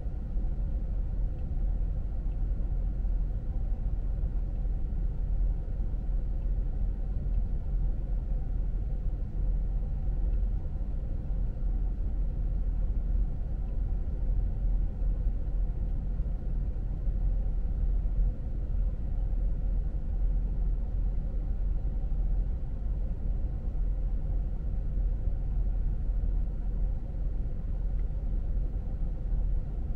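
A car driving along at an even pace: a steady low rumble of engine and road noise with no sudden changes.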